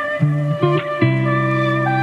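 Background music: plucked guitar with sustained, sliding notes.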